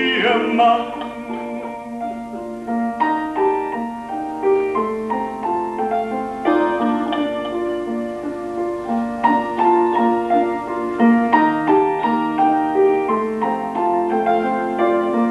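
Piano playing an instrumental passage between verses of a chanson. A singer's held, wavering note dies away about half a second in.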